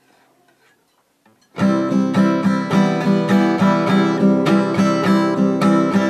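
Acoustic guitar strummed in a steady rhythm, about three strokes a second, starting about a second and a half in after a few faint handling sounds.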